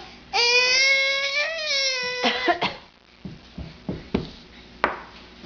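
A toddler's long, high-pitched voiced whine, held for about two seconds, then a few short fake coughs, with several faint clicks after them.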